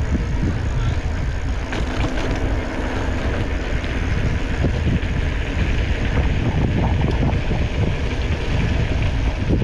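Wind rushing over the microphone of a moving ride camera, a loud, steady low rumble with hiss and no clear engine note.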